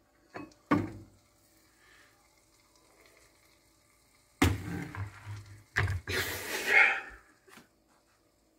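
An upturned metal bowl used as a microwave cover is lifted off, knocking sharply twice against the bowl and glass turntable under a second in. About four and a half seconds in comes a loud rushing, rustling noise lasting about two and a half seconds.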